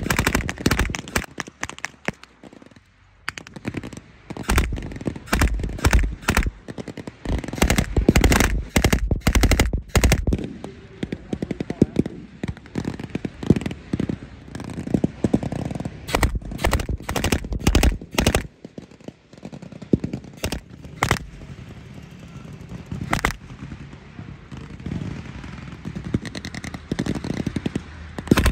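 Blank-firing gunfire in a WWII re-enactment battle: short bursts of rapid machine-gun fire mixed with scattered single rifle shots, coming in clusters throughout.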